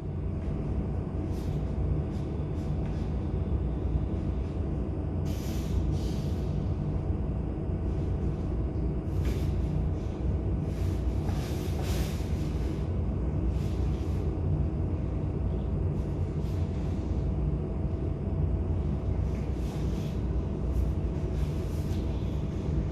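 Steady low machine hum with a constant faint tone, broken by several short hisses.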